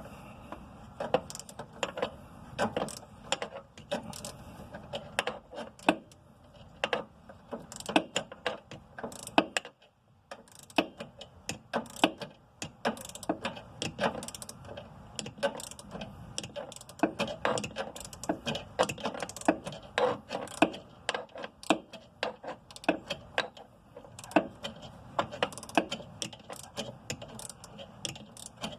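A ratcheting wrench clicking in quick, uneven runs as it backs a nut off a sway bar end link, with a short pause about ten seconds in.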